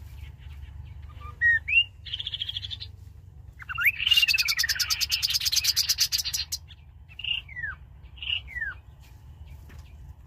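Rufous-capped babbler calling: a few short down-slurred whistles and a brief trill, then a loud, fast rattling trill of about two and a half seconds about four seconds in, followed by two more down-slurred notes.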